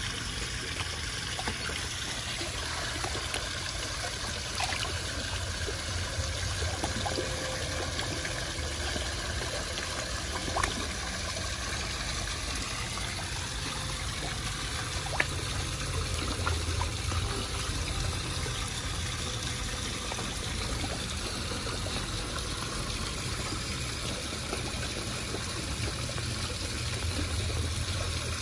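Koi pond water trickling steadily, with a couple of sharp little ticks, one about ten seconds in and another about fifteen seconds in.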